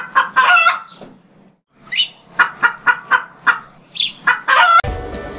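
Cartoon chicken-like clucking and squawking sound effect: short pitched clucks in two bursts with a brief pause between, including a quick even run of about four clucks a second, ending as music comes in near the end.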